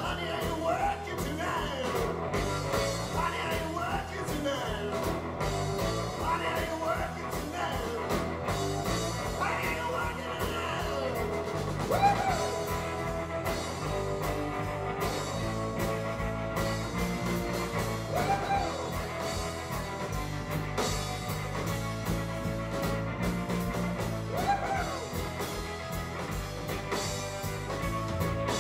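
Live blues-rock band playing an instrumental break: drums and bass keep a steady beat while a lead instrument plays a solo line with notes bent up and down.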